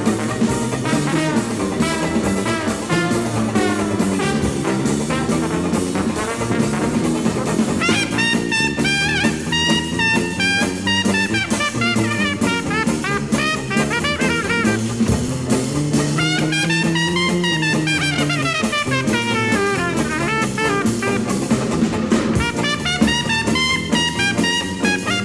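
Jazz-style background music with brass instruments and drums, with fast runs of notes sweeping up and down.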